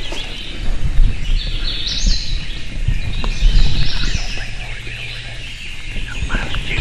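A songbird sings high phrases of quick stepped notes over the low bumps and rustle of a handheld camera carried by someone walking through forest leaf litter.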